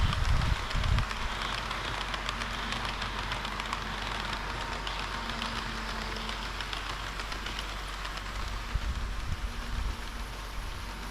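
Model train rolling along the track: a steady hiss of wheels on rail with faint fine clicking, and a few low thumps in the first second.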